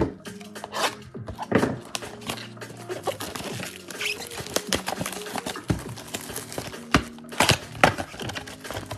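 Gloved hands handling a cardboard Panini Prizm blaster box and opening it: repeated knocks, taps and rustling of cardboard, with a couple of longer noisy stretches as the box is worked open, over quiet background music.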